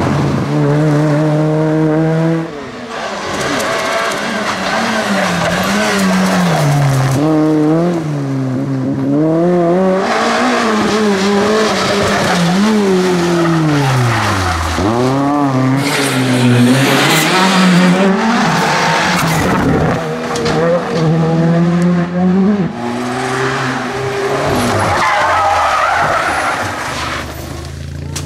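Rally cars driven flat out on a stage, one after another: engines revving hard, the pitch climbing and dropping sharply again and again with gear changes and lifts off the throttle, with tyres skidding on the tarmac.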